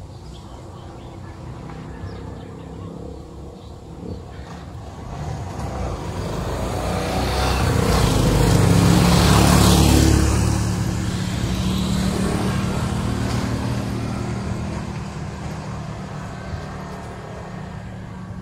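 A motor vehicle passing close by on the road, engine and tyre noise building over several seconds, loudest about halfway through, then slowly fading. A steady low engine note carries on after it.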